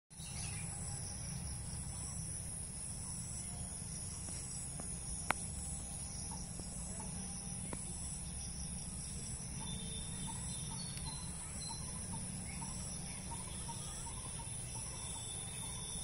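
Steady high-pitched insect drone over a low rumble on the microphone, with one sharp click about five seconds in and faint short chirps repeating through the second half.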